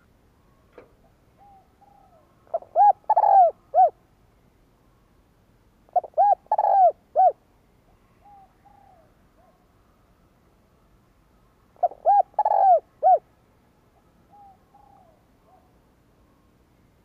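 Male spotted dove cooing: three loud phrases of several arched coo notes each, coming every four to six seconds, with softer short coos between them. This is the territorial cooing used as a decoy call to provoke wild doves.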